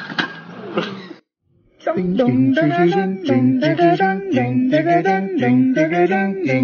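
A second of street noise with a few sharp knocks cuts to silence. Then music with a voice singing a melody in short, held, stepping notes.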